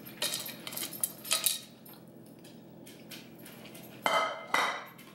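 Kitchen handling sounds: light clicks and rustles as a plastic bowl and food are handled over a cutting board, followed by two short, louder sounds about four seconds in.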